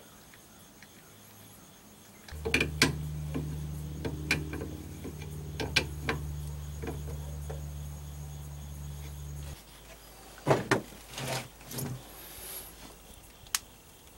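A machine hum, low and steady, that switches on abruptly, runs for about seven seconds and cuts off. Sharp metallic clicks and clinks of a hand wrench on the outboard's steering mount sound over it and after it.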